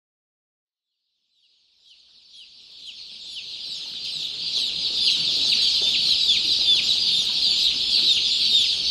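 A crowd of baby chicks peeping, a dense mass of high, quick chirps. It fades in from silence about two seconds in and grows steadily louder.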